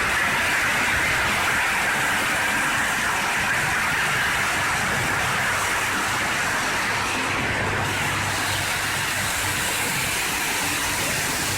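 Log multi-blade rip saw running with a steady, loud mechanical noise carrying a strong hissing band; it eases slightly a little past halfway.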